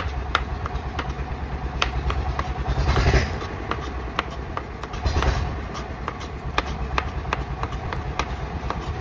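Kitchen knife slicing aloe vera leaves on a plastic cutting board: short sharp clicks of the blade hitting the board, about one every half second to a second. Under it a steady low engine drone from passing farm tractors, swelling louder about three and five seconds in.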